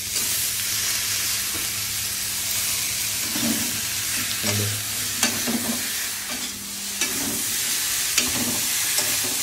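Shredded cabbage dropped into hot oil in a metal kadai of frying capsicum and onion, setting off a steady sizzle that jumps up as it goes in. Short clicks and scrapes of a utensil against the pan follow as the vegetables are stirred.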